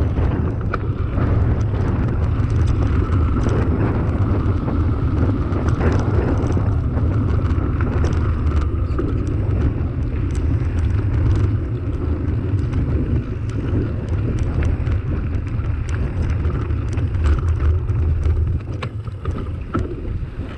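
Mountain bike riding over a loose gravel track: a steady low rumble from the tyres and frame, with wind on the microphone, and many small clicks and rattles from stones under the tyres and the bike shaking.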